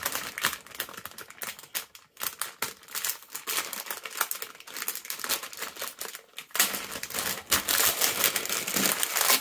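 Metallised plastic foil blind bag crinkling and crackling as hands grip it and pull it open, with dense crackles that grow louder for the last few seconds as the bag is lifted and tipped out.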